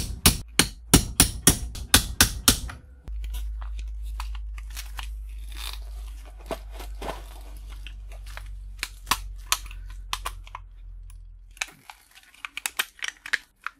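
A quick run of hammer strikes on a punch, about four a second for the first couple of seconds, driving out the drilled rivets of a circuit breaker's case. This is followed by a low steady hum with scattered clicks and small cracks as the case is worked apart, until the hum stops near the end.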